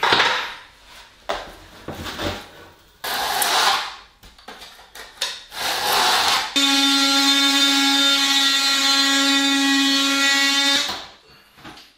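A few short scraping and rubbing noises, then a power tool runs at a steady whine for about four seconds and cuts off suddenly.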